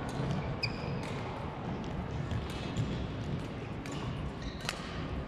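Badminton rally on an indoor court: sharp clicks of rackets striking the shuttlecock, mixed with footsteps and a short shoe squeak on the court floor, over the echoing background of other games in the hall.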